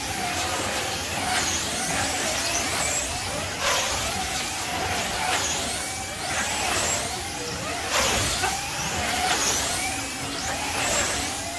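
Slot cars racing on a multi-lane track, their small electric motors whining together. The pitch sweeps up and down over and over, about once a second, as the cars speed up and slow down around the circuit.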